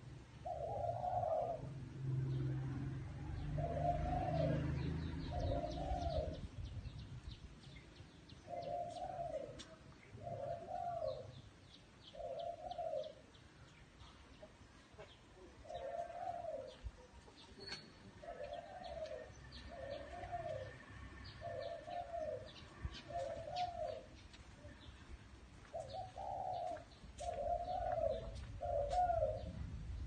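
Spotted dove cooing over and over in short phrases of two to four low notes about a second apart, with faint high chirps of small birds behind.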